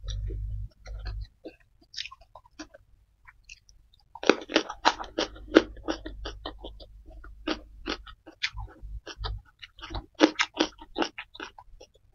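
Close-miked chewing of a mouthful of food, a dense run of wet, crunchy mouth clicks that starts about four seconds in after a short lull. A low rumble fills the first second.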